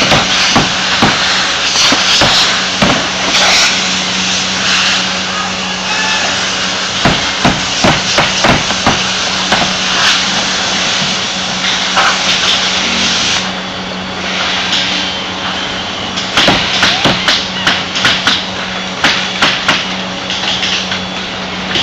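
Pneumatic fastener guns shooting into OSB roof decking: sharp shots in irregular clusters, fastest in a rapid run about two-thirds of the way in, over a steady low hum.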